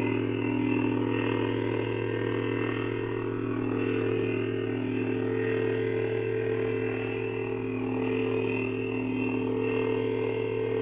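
Lightsaber sound board (Nano Biscuit V3) playing its steady electronic hum through the hilt speaker, swelling gently a few times as the lit blade is moved slowly.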